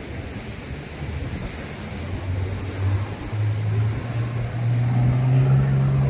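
An engine speeding up, its low note climbing in steps and growing louder through the middle of the stretch, over a steady wash of wind and sea.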